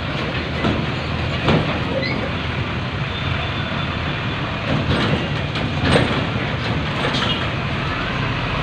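Train passing, its wagons rolling with a steady rumble and a few sharp clacks scattered through it.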